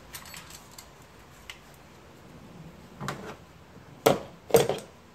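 Tools and loose parts being gathered up from a car's engine bay: a soft knock about three seconds in, then two sharp clunks half a second apart a little after four seconds.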